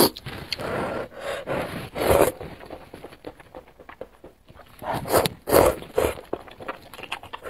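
Noodles being slurped from a bowl of broth in a series of noisy sucks, loudest about two seconds in and again around five and six seconds.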